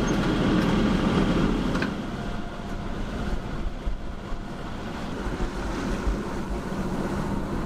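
Yacht under way: a steady low engine drone with water rushing along the hull and wind on the microphone, a little louder for the first two seconds.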